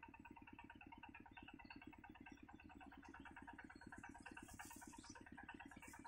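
Faint, steady, rapid pulsing drone of a distant engine-like source, with a few short, faint high chirps from the begging nestlings.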